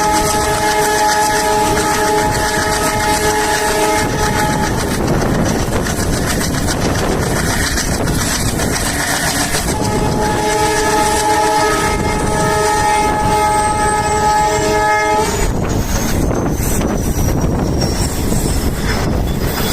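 Indian Railways diesel locomotive horn sounding a long multi-tone blast that cuts off about five seconds in, over the steady noise of the running train. The horn sounds again for about five seconds from around ten seconds in, then the train runs on with wheels clacking over the rail joints.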